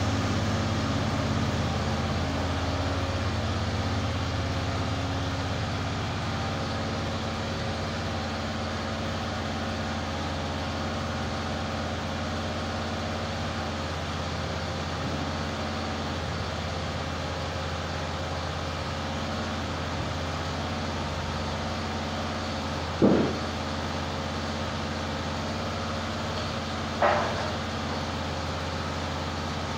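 EZ Boardwalk 40 bandsaw mill's engine running steadily, getting slightly fainter over the first few seconds as the saw head travels away along the log. Two short sharp knocks near the end, about four seconds apart.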